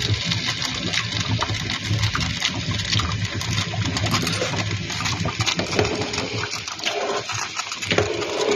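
Pot of ginataang bilo-bilo, a coconut-milk soup with rice balls, simmering on the stove: a steady bubbling hiss with many small pops, over a low hum.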